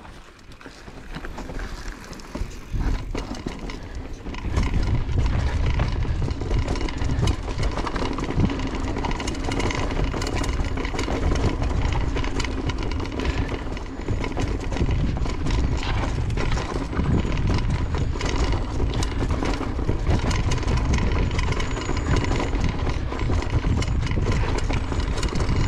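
Mountain bike riding fast down a loose dirt trail: tyres rolling over dirt and wind rumbling on the rider's camera microphone, with frequent rattles and knocks from the bike over bumps. The noise builds over the first four seconds as speed picks up, then holds steady.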